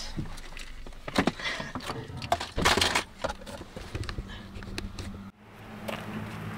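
Handling noise in a car's cabin: an uneven run of knocks, clicks and cloth rustles as the camera is bumped and moved about. Just after five seconds it cuts off suddenly, and a steady low hum follows.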